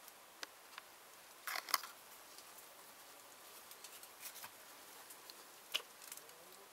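Faint scattered clicks and scrapes of someone moving through a tight cave passage, body and gear brushing against rock. The loudest is a short scraping rustle a second and a half in, with a sharp click near the end.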